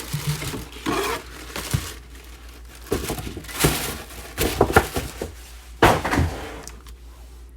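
Plastic packaging crinkling and rustling as it is handled and pulled open, with a few short sharp knocks.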